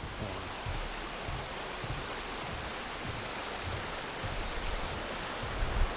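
Mountain creek rushing over rocks in a steady, even hiss, with a few soft low thumps underneath.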